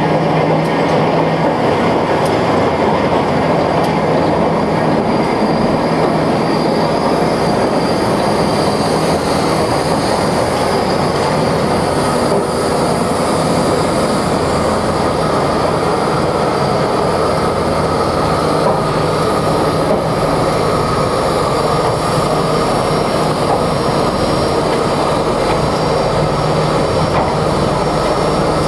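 Railroad turntable turning with a steam locomotive aboard: a steady, loud grinding rumble of the bridge running around the pit, with a low hum that fades in the middle and comes back near the end.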